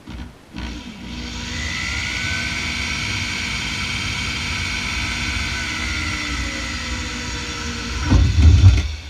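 Handheld electric pistol drill running under load as it drills a small pilot hole through a South Bend drill press cover, with a steady high whine after a short spin-up. About eight seconds in there is a louder low rattle, and then the motor stops.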